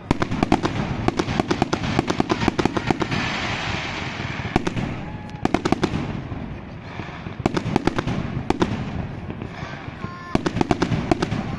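Fireworks display: rapid volleys of sharp bangs and crackling that come in clusters, heaviest during the first three seconds, with more bursts a few seconds apart.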